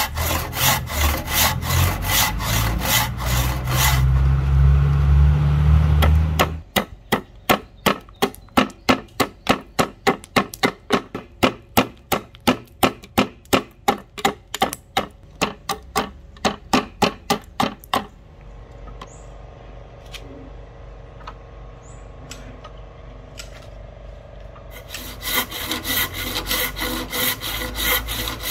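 A handsaw cutting a row of kerfs into a rosewood blank with steady back-and-forth strokes. After a few seconds it gives way to a long run of sharp chopping strikes, about two and a half a second, as a heavy knife splits out the waste between the kerfs. After a quieter pause, handsaw strokes start again near the end.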